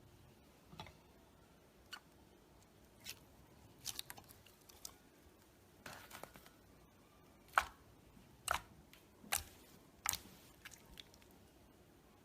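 Slime being handled by hand, giving irregular sharp clicks and pops, about a dozen in all, with a short crackle about halfway through and the loudest pops in the second half.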